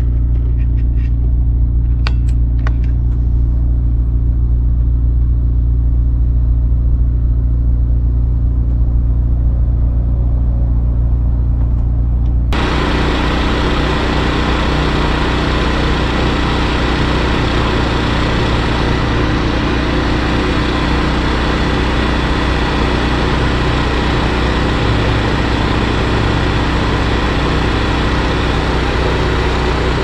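Steady low mechanical hum with several constant drone tones. About twelve seconds in it gives way abruptly to a louder, rushing rumble with hiss that keeps going.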